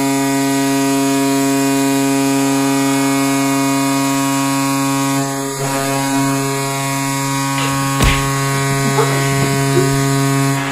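Recorded NHL arena goal horn blaring one long, steady blast, sounded for a goal; it cuts off near the end.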